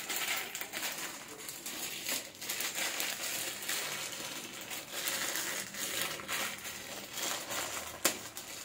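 Clear plastic polybag crinkling and rustling as it is handled and worked open, with a sharp click just after eight seconds in.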